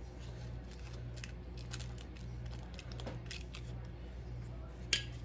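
Faint clicks and light taps of eggshells and bowls being handled as eggs are separated by hand, with one sharper tap near the end, over a steady low hum.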